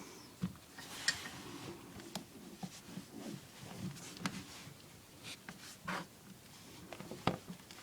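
Irregular light clicks, knocks and rustling of plumbing fittings and tools being handled, with sharper knocks about a second in and again near the end.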